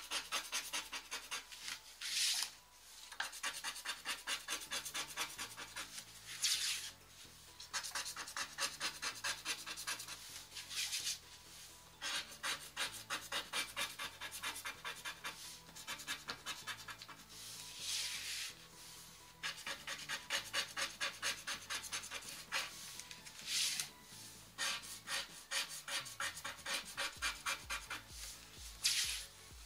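Scratch-off lottery card being scratched: quick rasping strokes over the coating, several a second, with a louder, longer rasp every few seconds.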